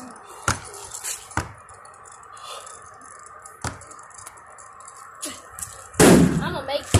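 A basketball bouncing a few separate times on the ground, then about six seconds in a loud bang as a shot hits the backboard and rim.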